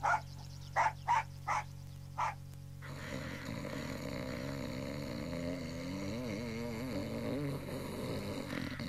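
A dog whimpering and yelping in about five short bursts. About three seconds in, a new steady background sets in with a slowly wavering tone.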